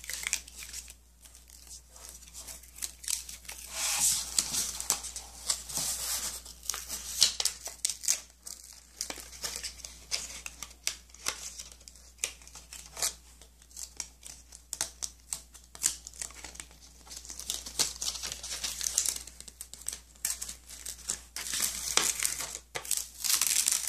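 Sheet of cardstock being peeled off a sticky cutting mat and worked loose with a spatula: irregular crinkling and tearing as the paper pulls away from the adhesive, with many small sharp clicks.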